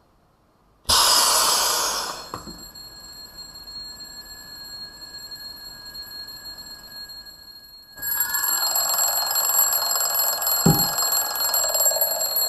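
Air hissing back into an evacuated glass bell jar for about a second, then a twin-bell alarm clock's hammer ringing its bells, muffled under the glass dome. About eight seconds in the ringing turns much louder as the dome comes off, with a thump a couple of seconds later.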